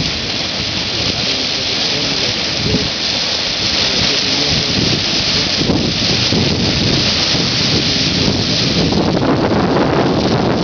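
Carbon-dioxide-driven water spout gushing out of the ground: a loud, steady rushing hiss of gas and spraying water.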